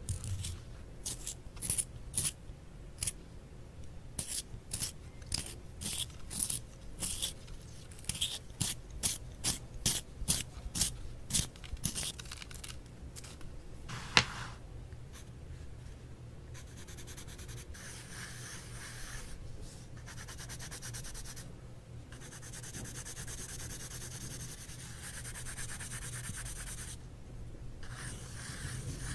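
A colored pencil being sharpened in a handheld sharpener, a run of short scraping strokes, then one sharp click. After that a red Mitsubishi colored pencil hatches on lined notebook paper: a steady scratchy rasp with a few brief pauses.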